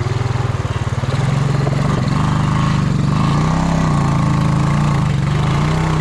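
Honda Rancher 350 ATV's single-cylinder four-stroke engine running steadily, its pitch rising and dipping slightly with the throttle about halfway through.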